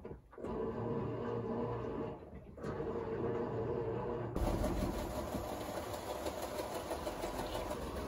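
Sharp ES-PU11B top-loading washing machine running in wash mode: a steady motor hum as the tub churns water and clothes, with two brief dips early on, then a lower, steadier drone from about four seconds in.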